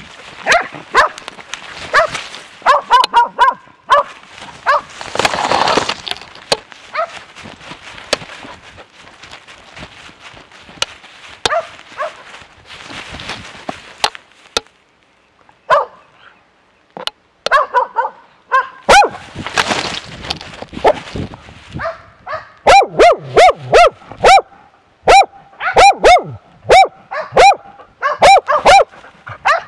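Dog barking at very close range from a camera on its own harness, with bursts of brush rustling against the camera; from about two-thirds of the way in the barks come in a steady, rhythmic run of about two a second, the persistent bay of a bear dog holding a bear.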